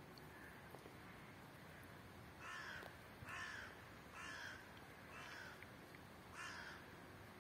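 A crow-like bird cawing five times, about a second apart, over faint outdoor background noise.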